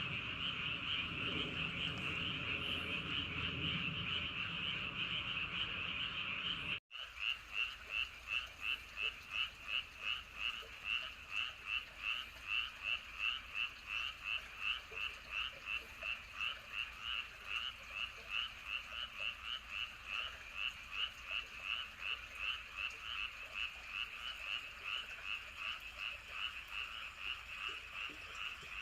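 Frogs calling in a dense chorus. For the first seven seconds a low rumble of wind sits under the calls; after a brief break the chorus comes through as a steady pulsing rhythm of about two to three calls a second.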